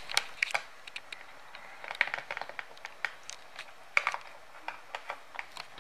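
Small plastic toy kitchen pieces being handled, giving irregular light clicks and taps, with small clusters about two seconds and four seconds in.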